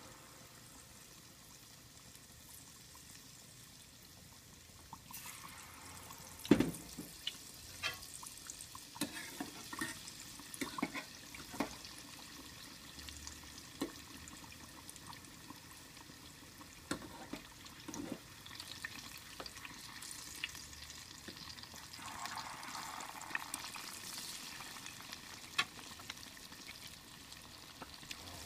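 Battered banana and sweet potato pieces deep-frying in hot oil: a steady sizzle that grows louder about five seconds in, with sharp pops and crackles scattered through it, the loudest about six seconds in.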